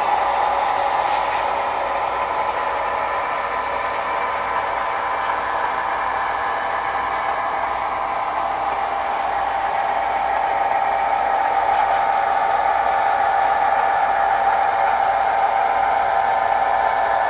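Recorded diesel engine sound of an HO scale model locomotive, played through its small onboard speaker, running steadily while the engine switches cars. It gets a little louder about ten seconds in.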